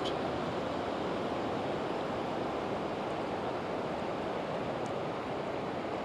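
Steady rush of a flowing river's current, an even hiss with no distinct events.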